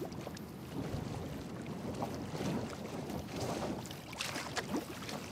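Sea water sloshing and splashing against a boat's hull, with wind, in irregular washes.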